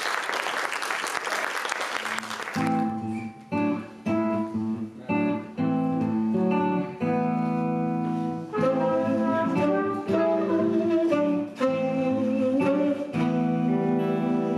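Audience applause ends about two and a half seconds in, and guitars start a song with picked notes over a low bass line.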